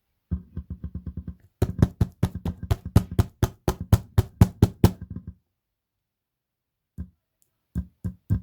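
Subwoofer speaker cone thumping as a 9-volt battery is tapped on and off its terminals: a fast run of short low thumps, about six or seven a second, for about five seconds, then a pause and a few single thumps near the end.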